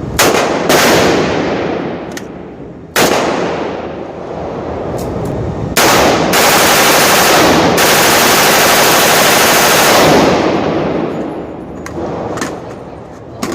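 AR-15 rifle fired with a slide fire bump-fire stock: a few separate shots with long echoing decays, then a sustained rapid-fire burst of about four seconds starting a little past halfway, ringing out afterward.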